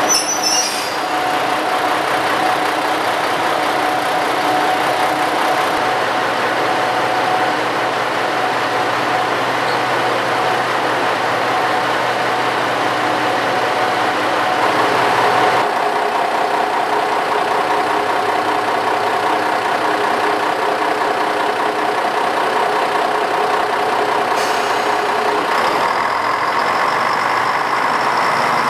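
KTR Tango Explorer diesel railcar standing with its engines idling, a steady hum with a constant tone. About halfway through the hum changes in pitch and character.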